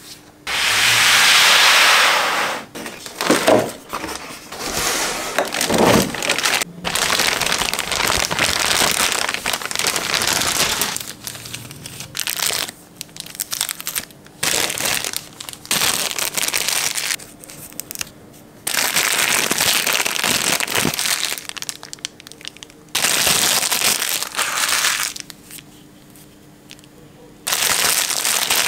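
Thin clear plastic packaging crinkling and rustling as gloved hands pull it off figure parts and a display base, in stretches of a few seconds with short pauses between.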